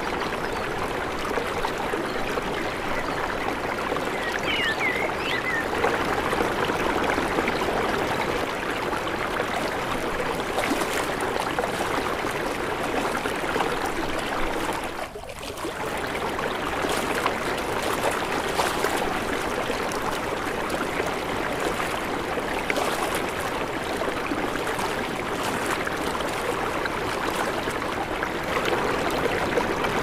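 Rocky mountain stream rushing and splashing over stones and small cascades, a steady rush of water. It dips briefly about halfway through.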